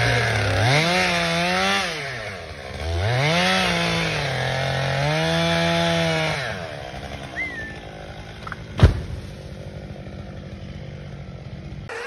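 Two-stroke chainsaw cutting into the base of a dead wild cherry tree, revving up and dropping back three times over the first six seconds, then running quieter at idle. A single sharp crack about nine seconds in is the loudest sound.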